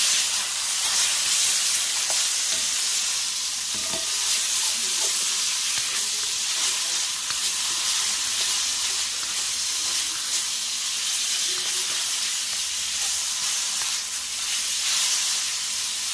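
Butter sizzling with a steady hiss as it melts and foams in a hot pot, pushed around with a spatula.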